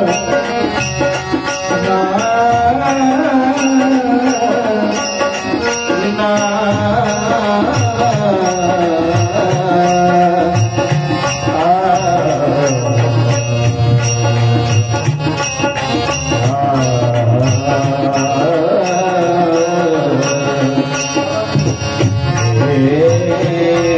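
Indian devotional song music with no words: sustained and gliding melodic tones over a steady, high ticking beat.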